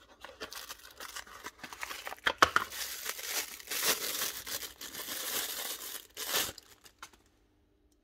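Small cardboard bearing box being opened, then the plastic bag inside it crinkled and torn open to free a needle bearing: irregular rustling and crinkling, loudest in the middle, stopping near the end.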